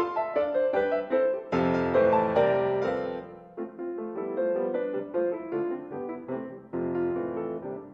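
Steinway grand piano played solo: a line of short detached notes, then a loud full chord about a second and a half in that rings and fades. A lighter run of notes follows, and another full chord comes near the end and dies away.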